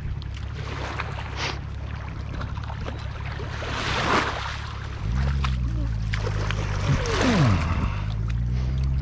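A motorboat engine hums steadily on the lake and grows louder about five seconds in. Water splashes twice, about four and seven seconds in, as a hooked bass is pulled through the shallows at the ramp's edge.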